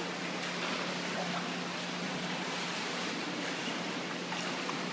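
Steady hiss of swimming-pool water and its surroundings, with a faint steady low hum underneath.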